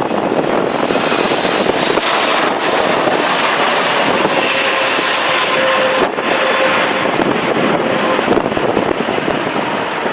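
Gusty storm wind rushing across the microphone, mixed with the engine noise of a jet airliner, with a faint steady whine standing out in the middle.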